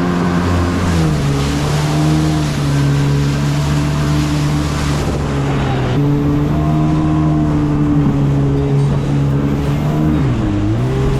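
1995 Kawasaki jet ski's two-stroke engine running under way with water and wind rushing past. Its pitch drops about a second in and then holds steady, with a brief dip and rise near the end.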